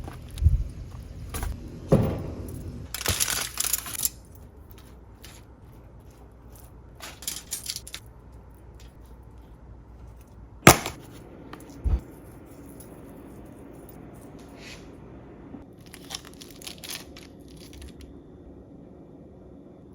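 Scattered handling noises: several sharp clicks and knocks, the loudest about halfway through, and a short stretch of rustling near the start.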